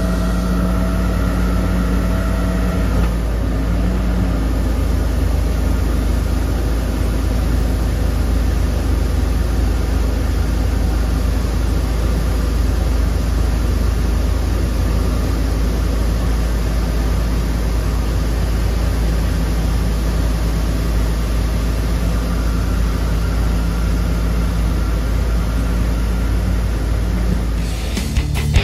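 Tracked excavator's diesel engine running steadily. A higher steady tone over it stops about three seconds in.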